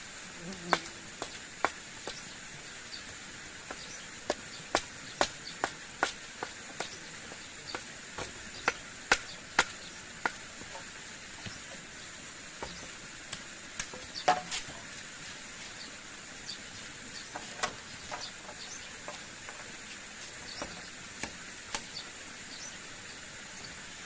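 Irregular sharp knocks of a blade or tool striking wood, a few a second in flurries, over a steady high insect drone.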